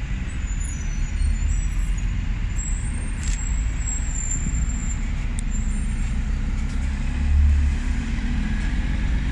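Diesel bus engines pulling away across a bus station yard: a steady low rumble that swells briefly about seven and a half seconds in.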